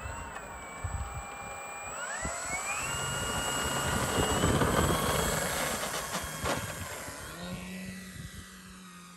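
Radio-controlled model biplane's electric motor and propeller whining at low power, then throttling up with a rising whine about two seconds in for the takeoff roll. It is loudest as the plane passes, then drops in pitch and fades as it climbs away.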